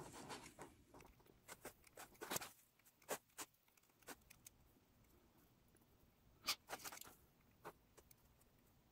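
Faint, scattered clicks and taps of small objects being handled, with near silence between them; the sharpest click comes about six and a half seconds in.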